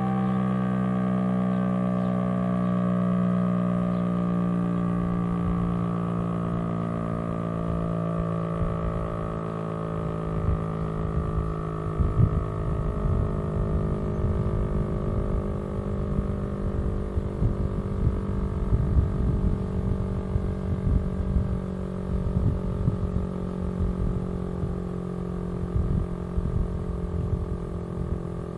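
FS&S (Federal Sign and Signal) STL-10A tornado siren, 10 HP, seven-port rotor, winding down slowly after a full-alert test, its several tones sliding steadily lower in pitch. A gusty low rumble joins about ten seconds in.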